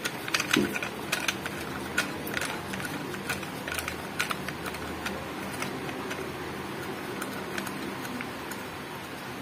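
Irregular light clicks and taps of a plastic phone chest mount's clamp and joints being handled and adjusted, scattered throughout.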